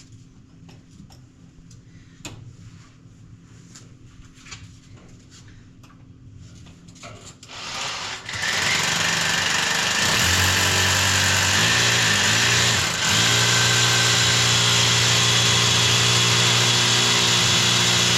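Electric power tool, such as a hammer drill, running steadily and loudly under load with an even pitched hum. It starts after several seconds of faint clicks and handling, grows louder a couple of seconds later, and dips briefly once midway.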